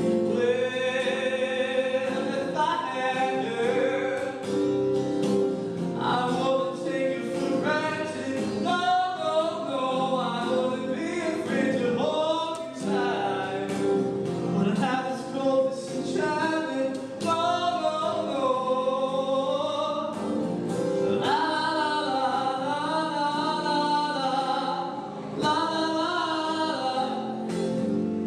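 Live song performance on electric guitar: a wavering, sliding melody line over held lower notes.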